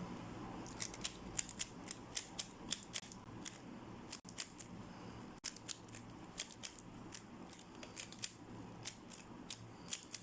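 A 3x3 speed cube being scrambled by hand: quick, irregular clicks of its layers turning, several a second, over a faint steady low hum.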